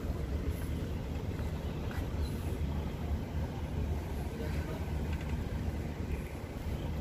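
Steady low rumble of a ro-ro car ferry's engines, heard from its open upper deck.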